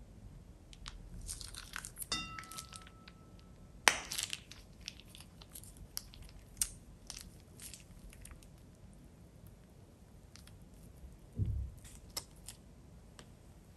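Thin plastic piping bag crinkling and crackling as it is squeezed empty of glue and handled, with scattered sharp clicks, the loudest about four seconds in. A short ringing note sounds about two seconds in, and a low thump near the end.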